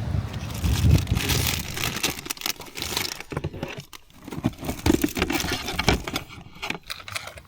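Close handling noises: rustling with a string of sharp clicks and light knocks, busiest in the first half and thinning out toward the end.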